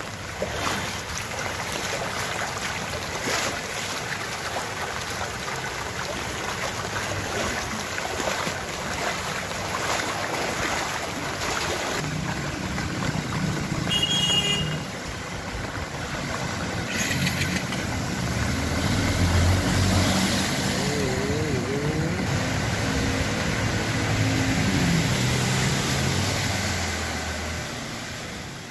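Floodwater rushing and splashing across a street while motorcycles and a car drive through it, their engines running. The engines grow louder in the second half as they pass close.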